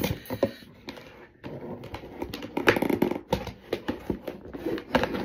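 Cardboard box being opened by hand: scraping and crackling of the flaps and packaging, with many irregular taps and clicks.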